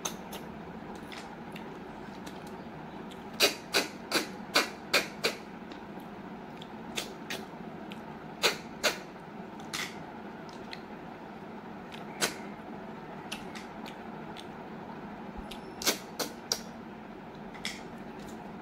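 Close-up eating sounds from a snail curry and rice meal eaten by hand: sharp mouth clicks and smacks, a quick run of about six a few seconds in and a few more scattered later, over a steady low background hum.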